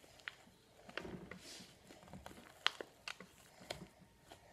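Homemade slime being kneaded by hand on a tabletop, a little fresh glue being worked in: faint, scattered sticky clicks and squishes.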